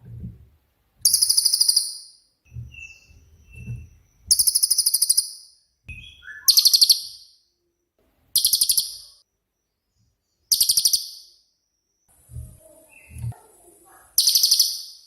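Cililin bird singing: six loud, rapid, high-pitched trilled bursts ('tembakan'), each under a second long and spaced a couple of seconds apart, with a few soft short chirps and low soft thuds between them.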